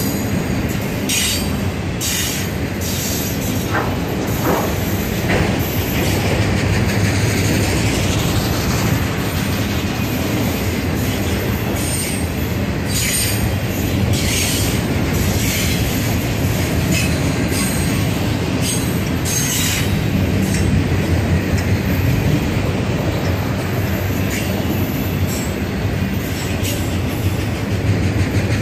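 A BNSF freight train of autorack cars rolling past: a steady rumble of steel wheels on rail, with scattered short, sharp wheel squeals and clicks.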